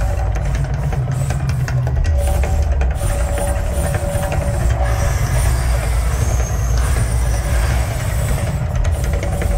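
Loud, deep, steady rumble of the Mirage Volcano eruption show, with faint tones from its soundtrack over it.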